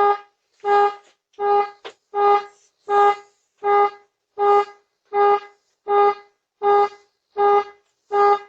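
A car horn honking over and over in a steady, even rhythm, about twelve short honks, one every three quarters of a second. There is a brief click about two seconds in.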